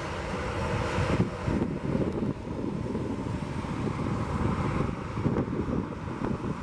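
Airbus A319 jet engines running at taxi power, with wind buffeting the microphone.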